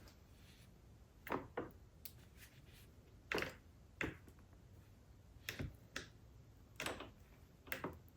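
Scattered light clicks and knocks, about ten in all at irregular spacing, from wires and clamps being handled at the battery and starter terminals; no starter motor whir is heard.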